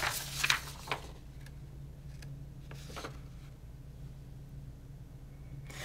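A sheet of printed copy paper handled and lifted, giving a few brief rustles in the first second and one faint one about three seconds in. The rest is quiet room tone with a low steady hum.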